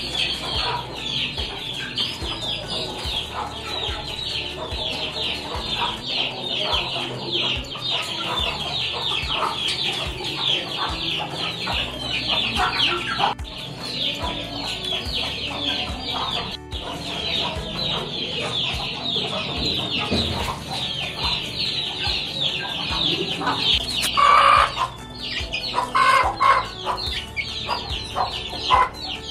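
A flock of chicks peeping continuously: a dense stream of short, high, falling cheeps. A few louder, lower clucks from a hen cut in near the end.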